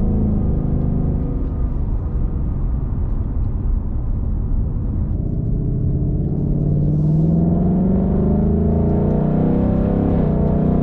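2020 Ford Mustang GT's 5.0 V8 running through the active exhaust with the resonator replaced by a Steeda H-pipe, giving a deep tone. Its pitch climbs steadily between about six and eight seconds in as the car accelerates, then holds.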